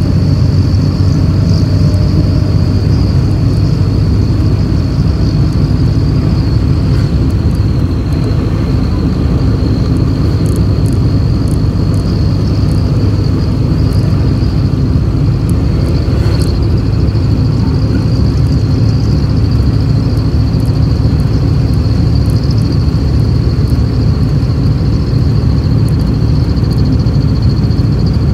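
Steady low rumble of a road vehicle running, with a constant high-pitched tone above it.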